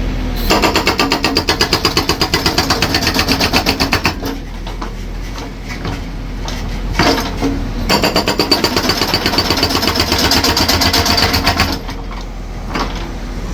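A concrete breaker hammering in two long runs of rapid, even blows, about eight a second, with an engine running steadily between the runs.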